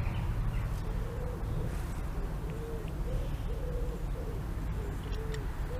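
A pigeon cooing: soft, low, hooting notes repeated in short phrases, about two a second.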